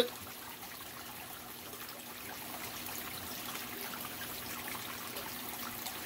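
Water from an aquarium waterfall splashing and trickling steadily onto the tank's surface, with a faint steady hum beneath.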